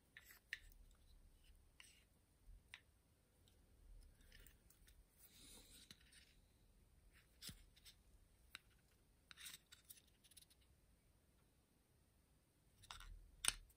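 Near silence with faint scattered clicks and a few soft rustles as small plastic-cased electronic parts and their wires are handled in the fingers: a brushless motor stator and a controller board with its display panel. The sharpest click comes near the end.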